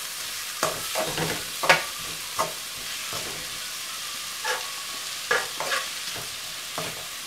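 Chopped onions sizzling in hot oil in a metal kadai while a metal spatula stirs them: a steady frying hiss broken by irregular clinks and scrapes of the spatula against the pan. The onions are being sautéed until soft.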